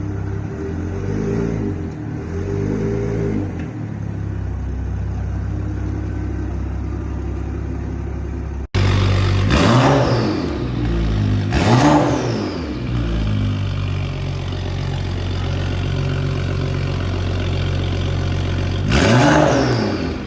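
BMW 535i's turbocharged inline-six idling through a straight-through exhaust with the muffler and resonator deleted, blipped up and back down five times: two small revs early, then three sharper ones after a brief break, the last near the end. The owner thinks it is a little too loud.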